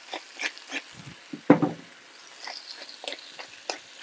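Chicken pieces frying in hot fat in an enamelled cast-iron casserole: irregular crackles and pops over a faint sizzle, one louder pop about a second and a half in.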